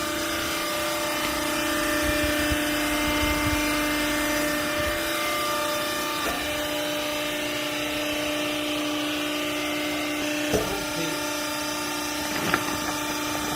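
Hydraulic baling press's pump motor running with a steady whine, with a couple of short knocks near the end.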